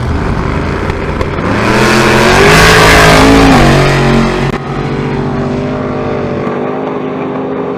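Drag race car engine at full throttle going by, growing louder to a peak about two to three seconds in, its pitch dropping as it passes. The loud part cuts off about four and a half seconds in, leaving a steady engine drone.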